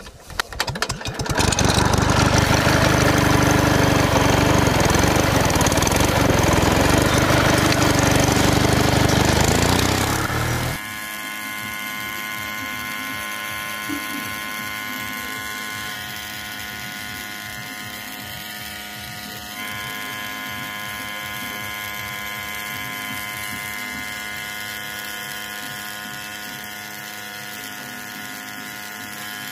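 Motor of a miniature model water pump switched on about a second in and running loudly. About eleven seconds in the sound drops abruptly to a quieter, steady hum of several tones that holds while the pump runs.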